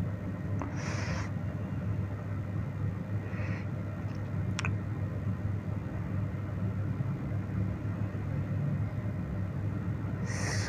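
Steady low background rumble, with two short hisses and a single sharp click.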